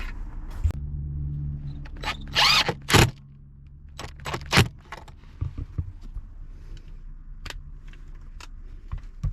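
Hand work on solar wiring: irregular clicks and handling noises, a loud scrape about two seconds in and a sharp snap of a cutter going through the cable just after, over a steady low hum.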